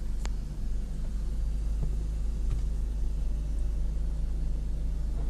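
Automatic car wash running over the car, heard from inside the cabin: a steady low rumble of the machinery with water and soap spraying on the glass and body, and one brief click just after the start.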